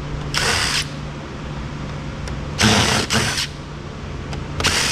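Cordless power screwdriver running in short bursts, four times, two of them back to back near the middle, backing screws out of a Roomba robot vacuum.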